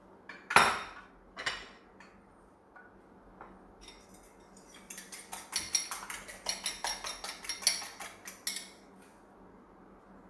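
Two sharp knocks about a second apart near the start, as a wooden spatula is set down on the cutting board. About halfway through comes a fork beating eggs in a ceramic bowl: quick metallic clinking, about five strokes a second, for nearly four seconds.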